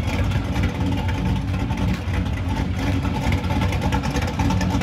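An engine running steadily, a low even hum with noise above it.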